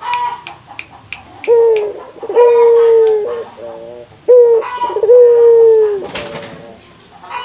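Barbary dove (burung puter) cooing: two phrases, each a short coo followed by a long drawn-out coo, the first about a second and a half in and the second about four seconds in.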